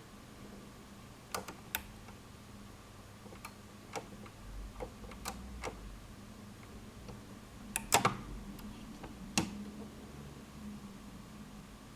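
Scattered light mechanical clicks and knocks from a Dual 505 turntable's tone arm and start mechanism being handled, the loudest cluster about eight seconds in, over a faint steady hum.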